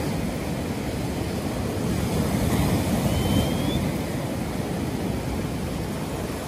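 Small waves breaking and washing up a sandy shore: a steady low rush of surf. A faint, short rising whistle about three seconds in.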